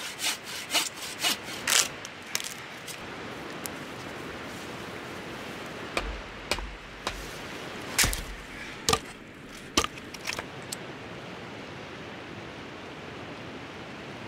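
A hand saw cutting through dry deadwood, about two strokes a second, stopping about two seconds in. A few thuds follow, then a loud sharp crack and two knocks of wood being split, over the steady hiss of a fast river.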